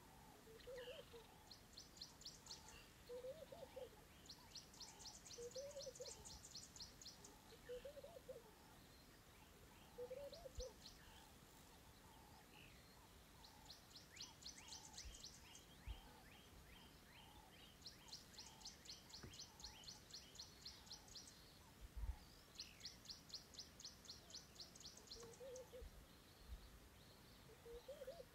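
Faint wild birdsong: a low hooting call repeats about every two seconds, and bursts of rapid high trills come and go, with a few soft low bumps.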